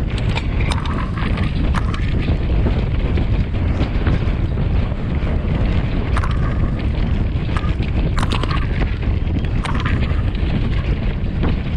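Wind buffeting the microphone of a mountain bike's onboard camera while it is ridden at speed, with scattered sharp clicks and rattles from the bike.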